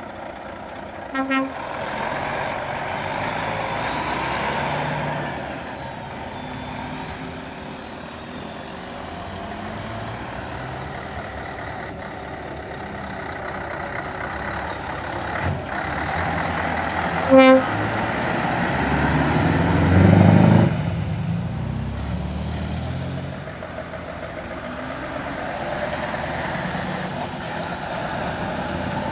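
Heavy diesel lorries pulling away one after another, engine noise swelling and fading as each passes. A short horn toot sounds about a second in and another about halfway through.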